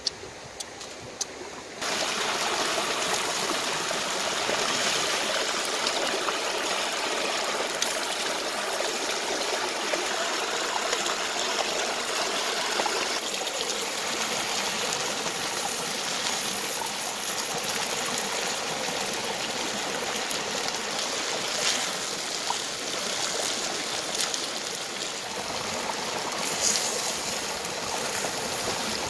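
Running water with a steady trickling, starting abruptly about two seconds in after a few light clicks.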